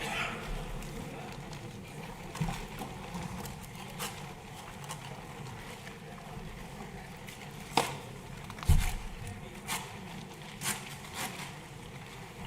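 Room noise of a large hall: a steady low hum with scattered clicks and knocks, two louder knocks close together about eight to nine seconds in.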